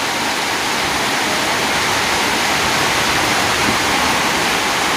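Heavy storm rain falling in a steady, dense hiss that does not let up.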